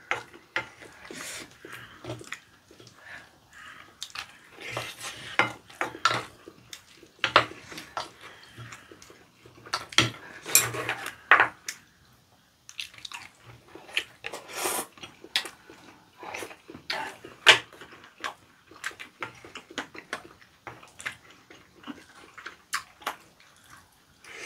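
Spoon and chopsticks clicking and scraping against ceramic bowls as rice and raw squid are mixed and scooped up, in a quick irregular run of small clatters with a short pause about halfway through.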